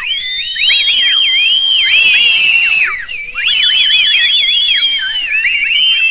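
Crowd whistling: many people whistling at once in overlapping shrill whistles, some held steady and some swooping down and back up, with a short lull about three seconds in.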